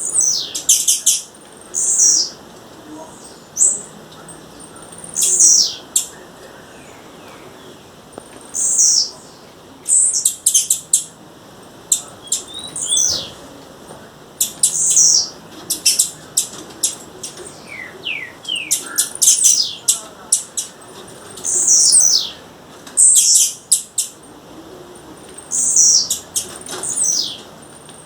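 Blue-black grassquit (tiziu) calling over and over: short, high, thin notes every second or two, some sliding down in pitch, between quick runs of sharp clicking notes.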